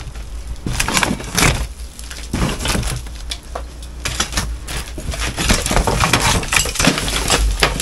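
Porch brickwork being broken out and collapsing: irregular knocks and cracks of masonry giving way, with rubble crashing and clattering down in a rush near the end.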